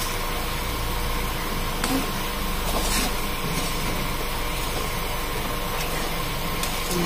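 Saba banana slices frying in oil and melted sugar in a metal wok: a steady sizzle, with a couple of light clicks from a metal spatula turning them.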